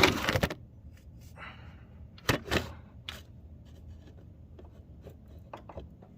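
Metal tool and belt-tensioner work noises under the hood: a half-second scraping rush at the start, two sharp clanks a couple of seconds in, then a few light clicks near the end, as the serpentine belt tensioner is levered back against its spring.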